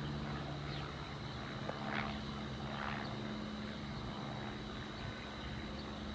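Small single-engine propeller plane flying overhead, its engine and propeller giving a steady low drone.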